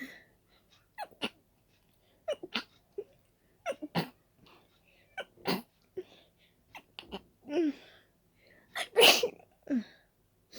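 A person sneezing over and over from a dust allergy: a run of short sneezes and sharp catching breaths, the loudest sneeze about nine seconds in.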